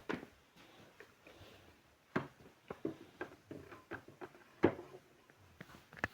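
Small items being handled and set down on a dressing table while it is tidied: a string of light knocks and clicks at irregular intervals, one sharper knock a little past the middle.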